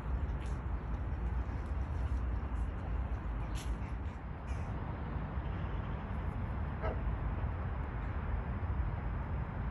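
Outdoor ambience: a steady low rumble with a few faint ticks, and one short bird call about seven seconds in.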